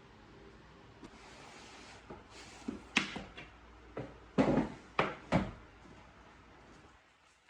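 A few sharp knocks and clunks, three close together about four and a half to five and a half seconds in, over a low steady hum.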